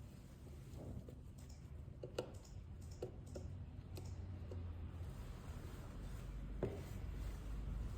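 Scattered small sharp clicks and taps, about eight irregularly spaced, the loudest a little after two seconds and at about six and a half seconds, from handling small tools and iPhone XR parts during a battery replacement, over a low steady hum.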